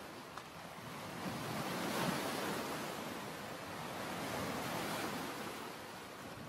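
Ocean surf washing onto a sandy beach, the wash swelling about two seconds in and again a few seconds later.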